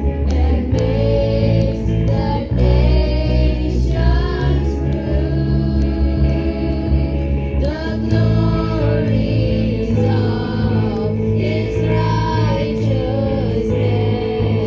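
A group of children and a young woman singing together into microphones, backed by a band with electric bass guitar and keyboard.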